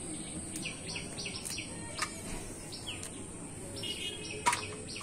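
Birds chirping in short, repeated falling calls over a steady high-pitched insect drone, with a few sharp clicks, the loudest about four and a half seconds in.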